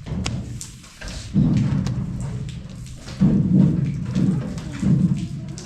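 Water splashing in three or four sudden surges, each fading away over about a second.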